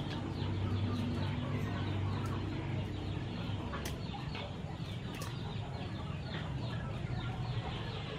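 Chickens clucking, with many short high falling calls, over a low steady hum; a few sharp clicks come about four and five seconds in.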